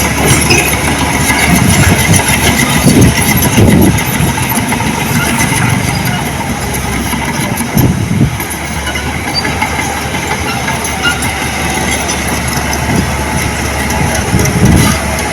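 Heavy earthmoving machinery working: a large diesel engine running under a steady mechanical din, with its low engine note surging several times.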